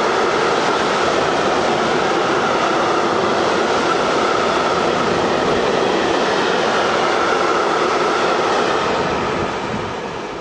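A train passing close by at speed: steady, loud rumble and hiss of wheels on the rail with a whining note, clickety-clack in the mix. The noise falls away about nine seconds in.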